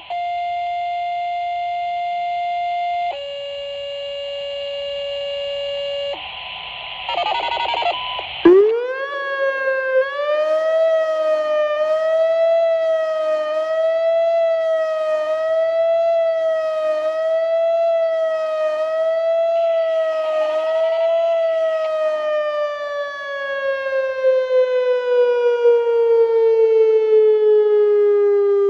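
Two long steady radio page tones, the second lower than the first, then a short burst of radio noise. About eight seconds in, a Whelen WPS-2740 electronic outdoor warning siren starts up with a quick rising tone and holds it, wavering slightly about every second and a half as the horn array rotates. Near the end the pitch slowly falls.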